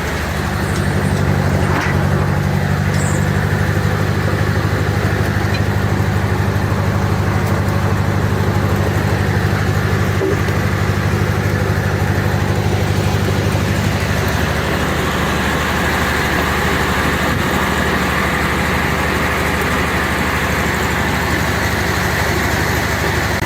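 Corley sawmill and its sawdust conveyor running under power: a steady machine drone with a strong low hum, which weakens about two-thirds of the way through as a higher sound comes up.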